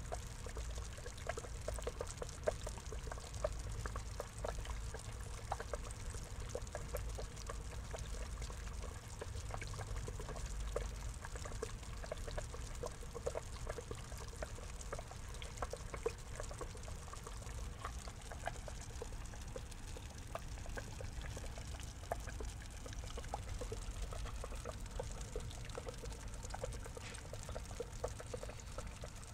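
Water trickling steadily into a small pond, with many small plinks of drops and a low rumble underneath.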